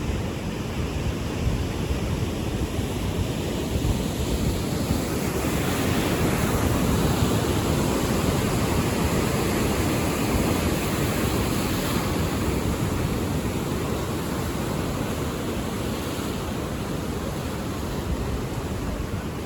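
Ocean surf washing in, a steady rushing noise that swells louder for several seconds in the middle and then eases back, with wind rumbling on the microphone.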